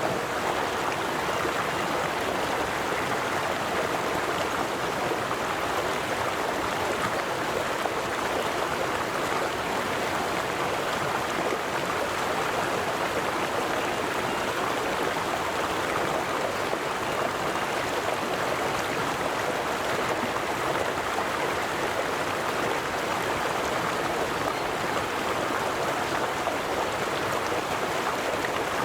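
River water flowing steadily over stones, an even rushing and burbling that does not change.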